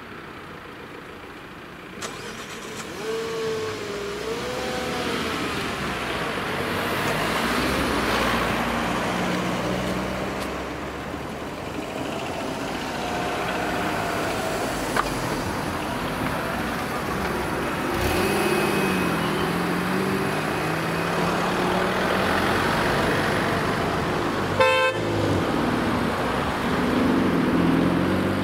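Road traffic moving off over a railway level crossing: cars pulling away and passing close by with engine and tyre noise, a few short knocks along the way, and one brief car-horn beep about three-quarters of the way through.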